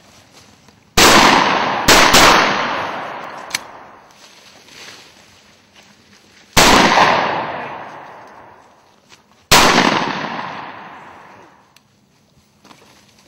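Shotgun shots at a quail hunt: a quick run of two or three shots about a second in, then two single shots a few seconds apart, each very loud and trailing off in a long rolling echo.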